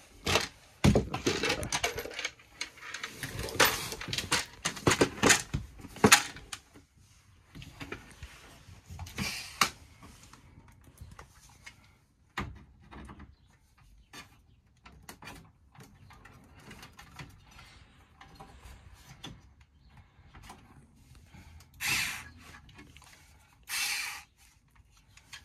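Metal screwdriver bits and a hard plastic bit case clicking and rattling as the bits are rummaged through, busiest over the first six seconds; then scattered small clicks as a bit is handled and fitted to a small screwdriver, with two short bursts of noise near the end.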